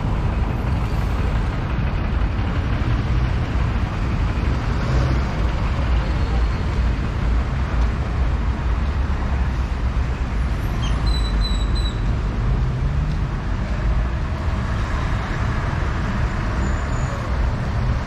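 Steady road traffic noise with a continuous low engine rumble.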